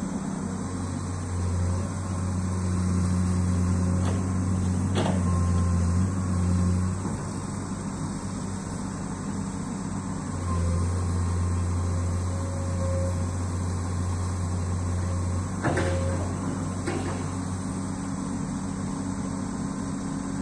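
Hydraulic excavator's diesel engine running, its low drone swelling and easing in stages as the hydraulics take load. A few sharp knocks come about four to five seconds in and again past the middle.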